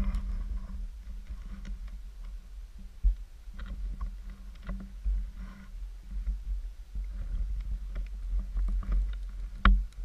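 Low rumbling noise on the camera's microphone, with scattered small knocks and rustles. A short knock comes about three seconds in and a sharp, louder one near the end.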